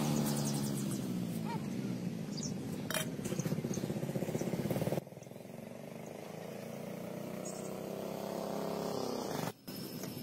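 A motor engine running, its pitch slowly falling. It cuts off abruptly about halfway through, and a fainter engine follows with its pitch slowly rising until another abrupt cut near the end.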